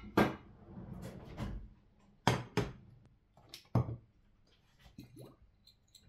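A frying pan and other kitchen things handled on a glass-ceramic hob and worktop: a series of sharp knocks and clunks with some rustling between them, and a short rising squeak about five seconds in.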